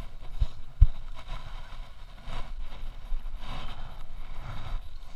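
Wind buffeting and rustling on a body-worn action camera's microphone, coming in uneven gusts, with a low thump on the mic a little under a second in.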